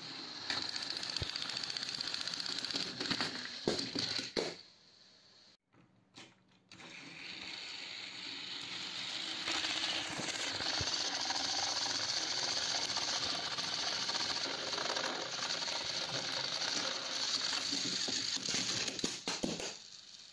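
Battery-powered Plarail toy train's small motor and gearbox whirring steadily as it runs along plastic track pulling a line of other toy trains, with a few clicks early on. The whirring drops away for about two seconds around the fifth second, then starts again and runs on until just before the end.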